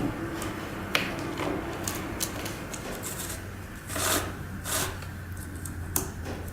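Hands working a chainsaw's chain and bar during a chain change: scattered metallic clicks and light rattles, with two brief scraping rustles about four seconds in, over a low steady hum.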